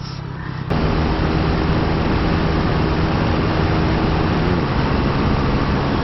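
KTM Duke 390's single-cylinder engine running steadily under way, under a loud, even rush of wind noise. It cuts in abruptly just under a second in.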